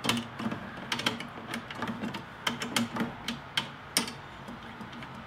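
Irregular sharp metal clicks and clinks, about ten in five seconds, as the bolts and lever linkage of a Lesco drop spreader's shutoff gate are worked by hand. The adjustment is meant to let the lever push the flow plate fully closed over the drop holes.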